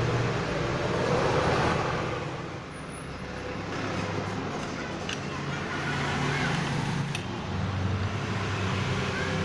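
Electric motor of a workshop machine running steadily, a low hum under a noisy whirr, the hum shifting in pitch a couple of times as the load changes.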